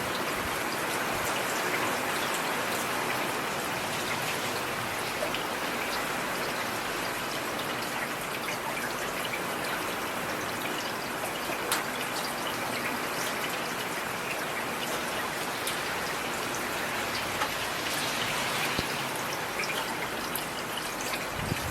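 Steady rain falling on a street, a continuous hiss scattered with sharp individual drop hits.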